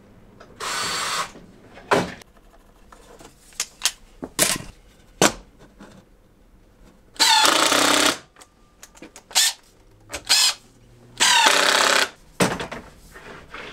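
Cordless driver driving screws into wood in three bursts of about a second each, with short knocks of parts being handled between them.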